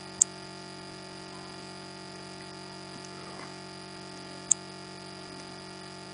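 Two short, sharp clicks about four seconds apart over a steady electrical hum made up of several fixed tones.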